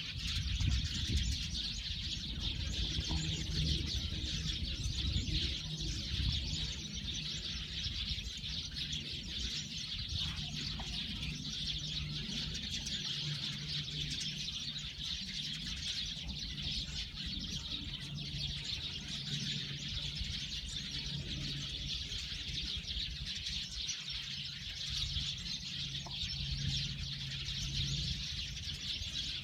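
A flock of Eurasian tree sparrows chirping continuously, many birds calling over one another, with a low steady hum underneath.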